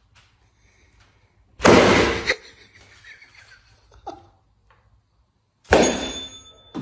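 Two loud, sudden hits of foam pool noodles, about four seconds apart, each dying away within a second.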